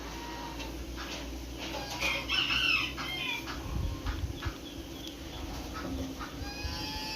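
A bird calls briefly about two seconds in, over a low steady hum and faint ticks.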